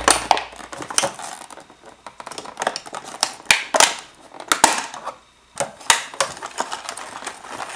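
Scissors snipping through a toy's plastic blister packaging, with the plastic handled as the toy comes free: a string of irregular sharp snips and clicks.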